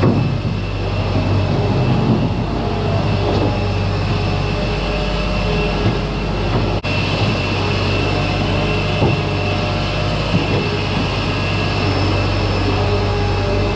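New Holland LS180 skid steer loader's diesel engine running steadily under work, with a steady high whine over it, as its steel bucket scrapes and pushes manure across the pen floor.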